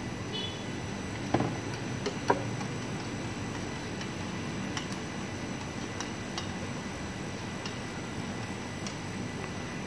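Light metallic clicks and clinks as a metal plate is handled while serving satay: two sharper ones between about one and a half and two and a half seconds in, then scattered faint ticks, over a steady background hum.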